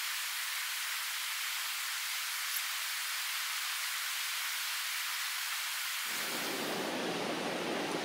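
Steady rush of a fast-running river swollen with snowmelt. About six seconds in, the sound turns fuller and deeper.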